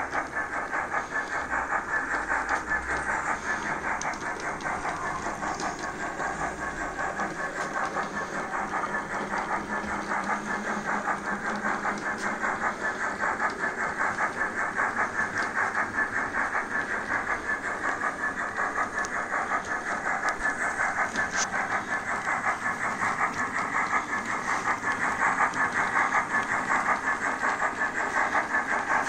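OO gauge model steam locomotive and coach running steadily along the track, a continuous mechanical running noise that pulses quickly and evenly.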